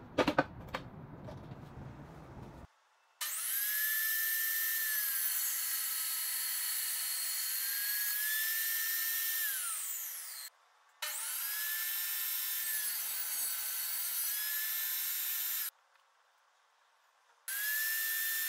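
Stanley 10-inch table saw running and cutting a pine board: a loud, high motor-and-blade whine whose pitch sags while the blade is in the wood and rises again as it clears. It comes as three separate passes with abrupt breaks between them, after a few sharp clicks at the start.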